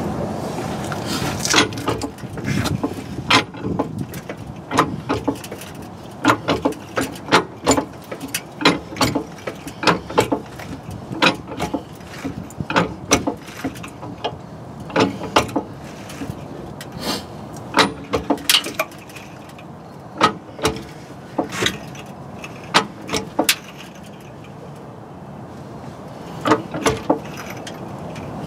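Hydraulic floor jack being pumped by its handle to raise a car: a sharp metallic click or clank with each stroke, one or two a second, with a short lull near the end.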